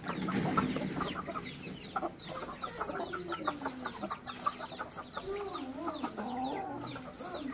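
Aseel chickens clucking in their pens. Many short high chirps come throughout, and a drawn-out wavering call rises and falls twice, from about two seconds in and again past the five-second mark.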